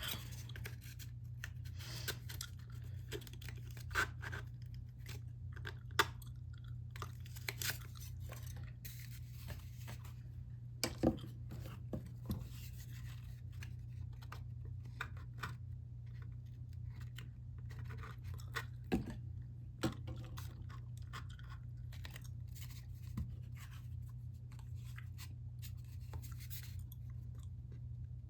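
Small handling noises from model rocket assembly: scattered light taps, clicks and rustling of parts on a work surface, a few sharper knocks around 11 and 19 seconds in, over a steady low hum.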